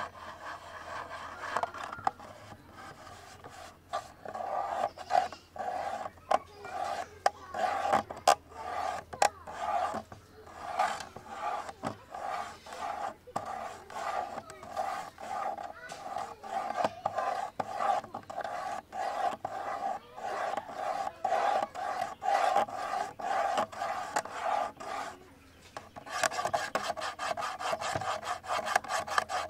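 Rhythmic ASMR scratching and rubbing on a camera body, a rasping stroke repeated several times a second. The strokes stop briefly about 25 seconds in, then resume quicker and denser.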